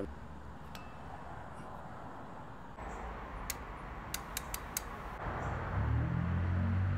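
A socket wrench is worked on a brake caliper bolt, giving five or six sharp separate clicks over about a second. A low steady hum comes up near the end.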